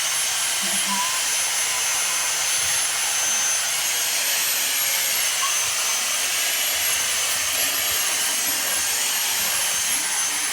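Vacuum cleaner running steadily: an even high hiss with a thin, steady high-pitched whine over it.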